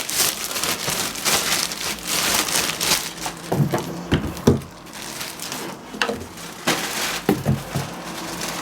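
Plastic packaging crinkling and rustling as a boxed wood router is unwrapped and handled, with a few sharp knocks, the loudest about four and a half seconds in.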